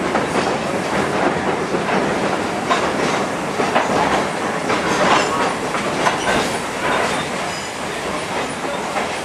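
Railroad car riding along the track, its wheels clicking and clattering over the rail joints over a steady rumble of the moving car.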